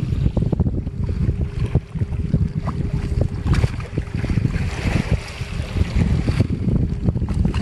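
Wind buffeting the microphone with a heavy rumble, over crackling and rustling from plastic bags being handled as fish are pushed into them.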